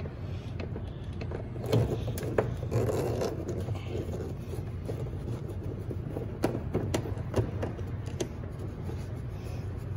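Phillips screwdriver working a screw out of the fender liner at the bumper's lower edge: scattered clicks and scraping over a steady low hum.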